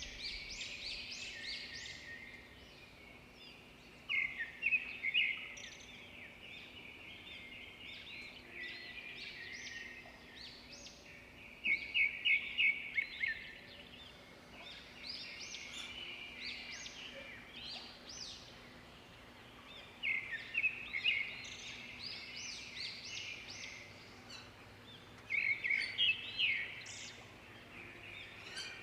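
A chorus of songbirds chirping and singing, with louder flurries of quick high notes every several seconds.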